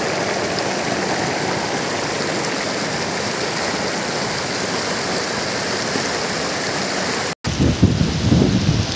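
Sindh River rapids rushing steadily over boulders. About seven seconds in the sound cuts briefly, and a louder, gusty low rumble follows.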